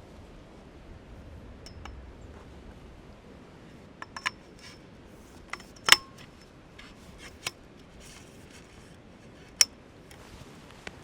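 Light metal clicks and clinks of small gear being handled, a scattered string of them with the loudest about halfway through and one more sharp clink near the end.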